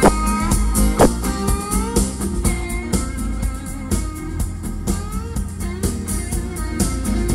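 A guitar-led song with sliding notes and strong deep bass, played on a car's aftermarket sound system.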